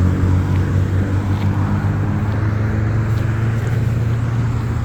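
Motor vehicle engine idling with a steady low hum.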